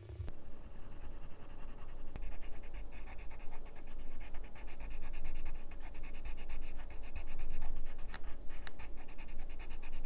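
A green colored pencil shading on paper: quick, scratchy back-and-forth strokes, growing denser after the first couple of seconds, with two sharper ticks about eight seconds in.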